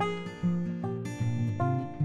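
Background music: a guitar plucking a melody over low chords, a new note every few tenths of a second, each fading out.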